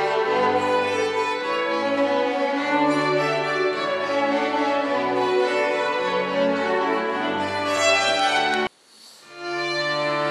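A chamber string ensemble of violins plays sustained bowed notes. Near the end the sound cuts off abruptly for under a second, then the strings come back in.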